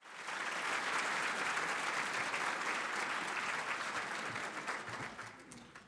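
Audience applauding, a dense patter of many hands clapping that thins out and fades away over the last second or so.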